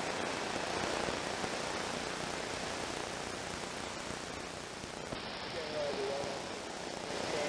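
Steady hiss of static from an 11-meter (CB) radio receiver tuned to 27.285 MHz, with no strong signal coming through on a weak band. A faint wavering trace sits under the noise about five and a half seconds in.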